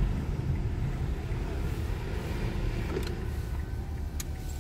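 Steady low rumble of a car cabin, with a few faint clicks about three and four seconds in.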